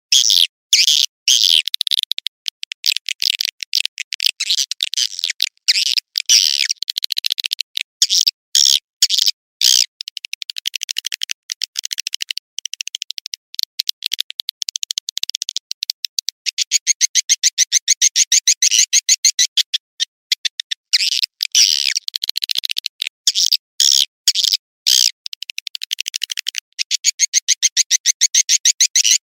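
Swiftlet lure-call recording: rapid, high-pitched swiftlet chirps and twitters, alternating with stretches of fast, evenly spaced clicking trills. It is the kind of sound played to draw young swiftlets into a swiftlet house.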